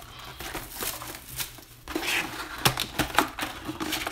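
Plastic shrink wrap crinkling and cardboard rustling and scraping as a sealed box of trading cards is unwrapped and its lid flipped open, with several short clicks and scrapes in the second half.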